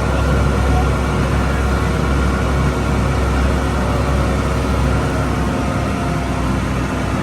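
A river tour boat's engine running steadily at cruising speed, a loud, even low hum.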